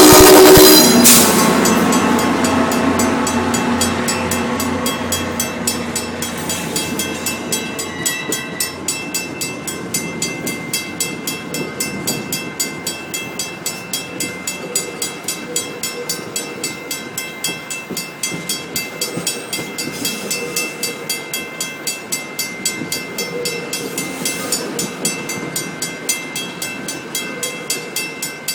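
Train horn blast cutting off about a second in. A passing train follows, its rumble slowly fading under a steady run of evenly spaced clicks, a few each second.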